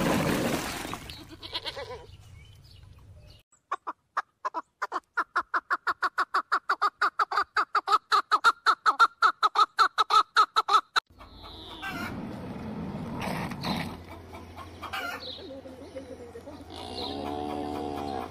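Cream being churned in a metal pot, a rushing noise that dies away about a second in. Then an animal calls in a rapid, even run of short notes, about five a second for some seven seconds, followed by a few shorter calls near the end.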